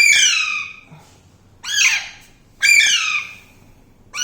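Pet parrot squawking: a series of loud, harsh calls, about one a second.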